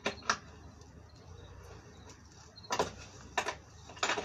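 Short, sharp wooden knocks, several in close pairs, as plywood table panels and legs are knocked and fitted together during assembly.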